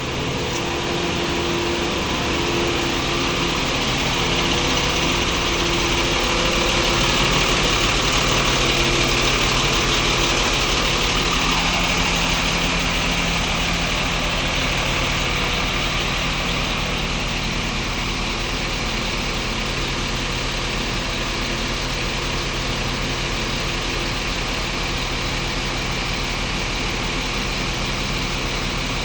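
An engine running steadily, with a low, even hum that swells slightly for a few seconds before settling back.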